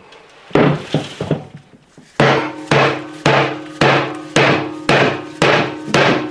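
Rubber hammer knocking the shaft assembly out of a Miele washing machine's stainless steel drum. A few light taps come first, then strong, evenly spaced blows about two a second, each followed by a brief metallic ringing from the drum.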